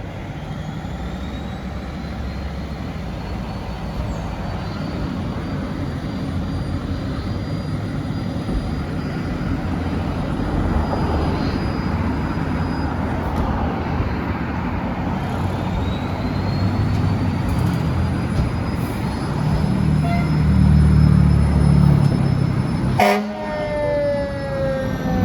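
Responding fire apparatus: engine noise grows louder as it approaches, with a siren wailing faintly in slow rising glides. About 23 seconds in there is a sharp crack, then the siren's pitch slides steadily down as the truck passes.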